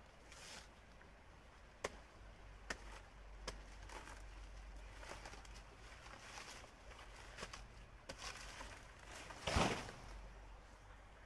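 A blade chopping at banana plant stems: a few sharp knocks over the rustle of dry banana leaves, with a louder crackling crash about two-thirds of the way through.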